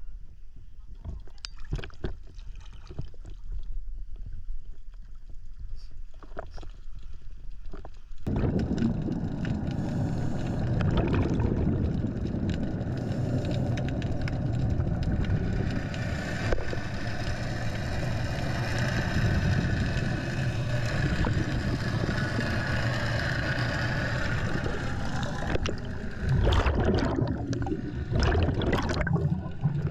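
Small splashes and water sounds at the surface, then, about eight seconds in, the dense, muffled rushing noise of a camera underwater with a scuba diver. Near the end come several gurgling bursts of exhaust bubbles from the diver's regulator.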